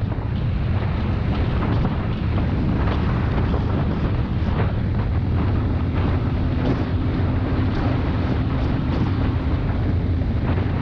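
Suzuki Gixxer SF motorcycle's single-cylinder engine running steadily on the move, with wind buffeting the microphone.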